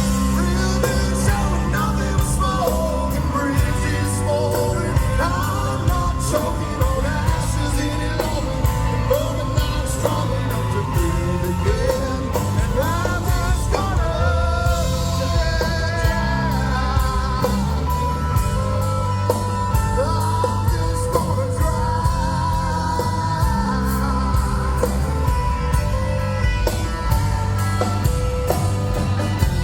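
Live rock band playing an instrumental passage: steady drum beat and bass under a lead melody line that bends and wavers in pitch.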